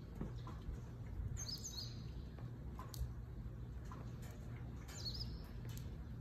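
Small birds chirping a few short times in the background, about a second and a half in and again about five seconds in, over a steady low hum and a few faint ticks.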